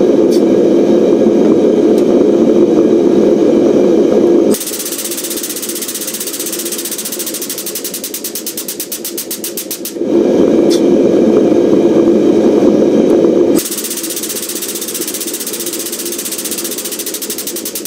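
Air-driven pump of a 20-ton air-over-hydraulic bottle jack running as the press squeezes a hot steel bar. It switches back and forth between a loud, deep steady hum and a quieter, fast, even chatter of pump strokes: hum for the first four and a half seconds, chatter, hum again for about three and a half seconds, then chatter to the end.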